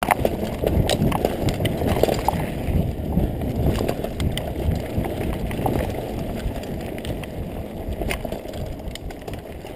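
Mountain bike riding fast over a dirt forest trail: a close, steady rumble of tyres and frame with frequent sharp knocks and rattles over bumps, easing off somewhat toward the end.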